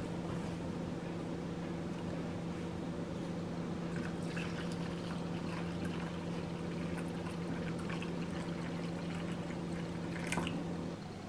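Water poured from a stainless steel kettle into soup bowls for miso soup, trickling and splashing from about four seconds in, with a short sharp clink near the end. A steady low hum runs underneath and stops just before the end.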